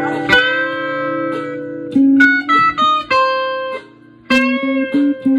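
Guitar music from a demo song: a held chord, a quick run of single plucked notes, a short break about four seconds in, then repeated picked notes.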